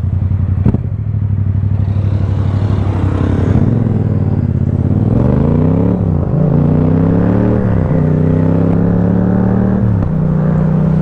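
Yamaha XSR700's 689 cc parallel-twin engine through an Akrapovic carbon full-system exhaust, riding steadily for a few seconds, then accelerating through the gears: the engine note rises three times, dropping sharply at each upshift, and settles to a steady cruise near the end. A sharp click sounds just under a second in.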